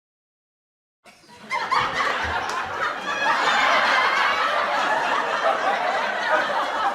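Canned laughter: a laugh track of a large crowd laughing together, starting about a second in and swelling quickly to a steady, full laugh.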